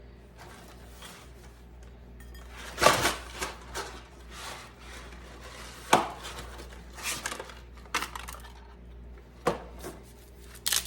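Dry uncooked spaghetti being snapped by hand, with the pieces clattering into a ceramic casserole dish: several sharp cracks, the loudest about three seconds in and again about six seconds in.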